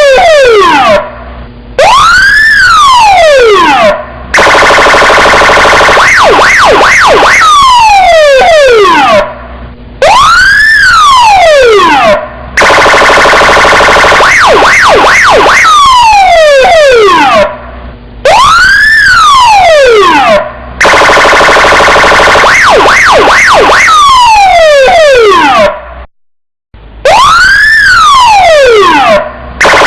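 Electronic police car siren cycling through its tones: a long falling sweep, a slow rise-and-fall wail, then a few quick chirps and a rapid pulsing stretch. The pattern repeats about every eight seconds, with short breaks between the parts.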